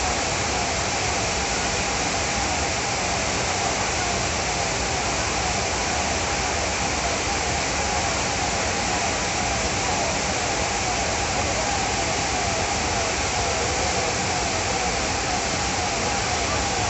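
Floodwater rushing down a street in a fast, churning torrent: a steady, unbroken roar of water.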